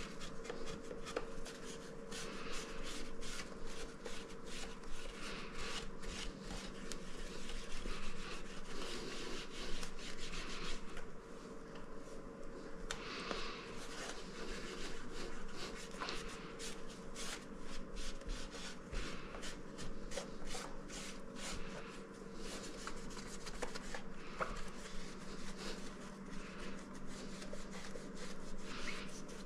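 Hands rubbing and scrubbing the glass and metal came of a stained-glass ceiling light fixture, an irregular run of rubbing strokes and scrapes as grime is cleaned off the panels. A steady low hum runs underneath.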